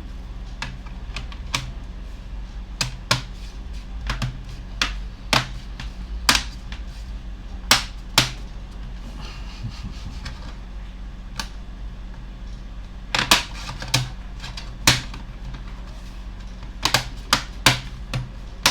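Irregular sharp plastic clicks as the clips of a Dell Inspiron 15 5566 laptop's case snap into place while it is pressed shut, over a low steady hum.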